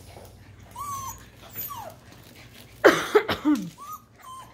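Puppies whining and yipping as they play: a few short high whines early, then a loud yelp about three seconds in, followed by more short whimpers.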